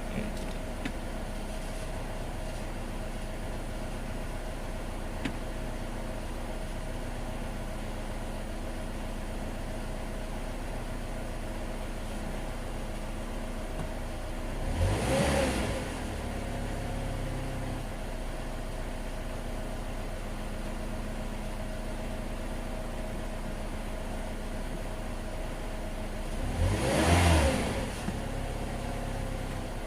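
2005 Chevy Cobalt's 2.2-litre inline-four engine idling steadily, briefly revved up and back down twice, about halfway through and near the end.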